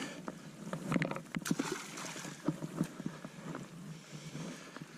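Small irregular splashes and sloshing in shallow water as a caught largemouth bass is let back into the lake.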